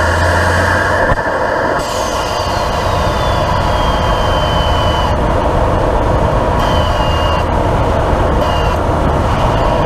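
Toyota GR Corolla's turbocharged three-cylinder engine breathing through an MST Performance cold air intake, with turbo whistle and intake noise. About two seconds in the engine's load drops and a turbo whistle falls in pitch, holding a steady tone for a few seconds; two short whistles come near the end.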